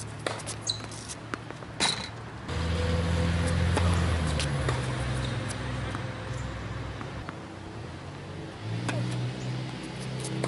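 A tennis ball is struck by rackets and bounces on a hard court, a series of sharp pops with the loudest about two seconds in. Then a steady low hum sets in suddenly and stays under the rest, the loudest sound from there on.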